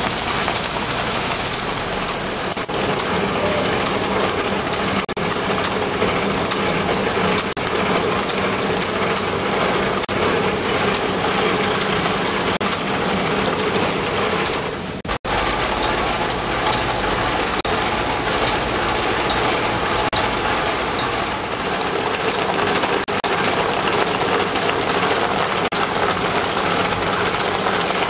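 Web-fed business-forms printing press (a reel-to-pack converter) running: a loud, steady mechanical clatter and hiss of rollers and gears. It drops out for an instant about halfway and then goes on unchanged.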